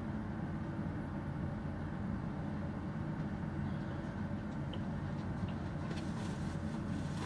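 Steady low rumble inside a bus, with a few faint clicks near the end.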